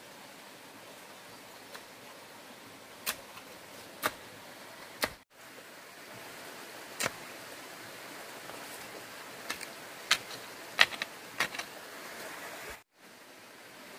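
Hands digging and pressing dry soil around a planted stake: scattered sharp crunches and taps, a cluster of them near the end, over a steady background hiss. The sound cuts out briefly twice.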